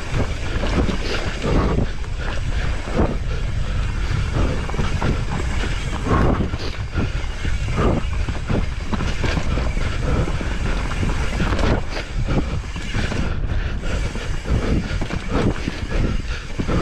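A mountain bike riding down a rough trail: a steady rumble of tyres on dirt and stones, with frequent knocks and rattles from the bike.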